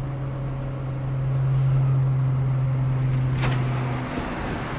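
Vehicle driving on the road: a steady low engine drone over road and wind noise, the drone dropping away about four seconds in.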